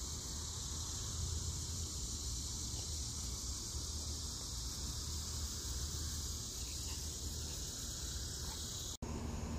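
Steady, high-pitched chorus of insects, with a low rumble underneath. About nine seconds in the sound cuts, and the insect chorus drops back behind a low steady hum.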